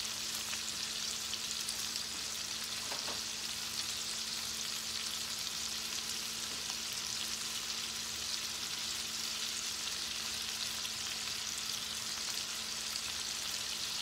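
Chicken legs browning in hot oil in a stainless steel skillet, a steady sizzle.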